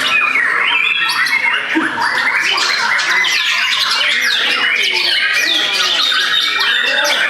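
Many white-rumped shamas singing at once against each other: a dense, loud tangle of overlapping whistles, rapid trills and harsh calls.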